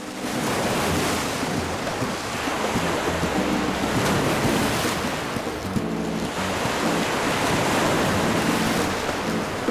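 Killer whales leaping out of a pool and crashing back in, with heavy splashing and churning water in two long surges and a short lull between them.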